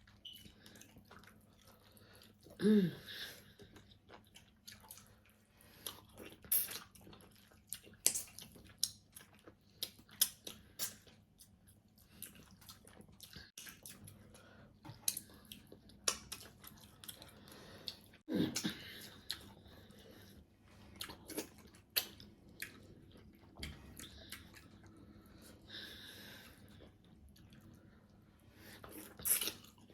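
Close-up chewing and wet mouth sounds of people eating soft starch with soup and fish: irregular smacks and clicks throughout, with a couple of brief louder sounds about three seconds and eighteen seconds in.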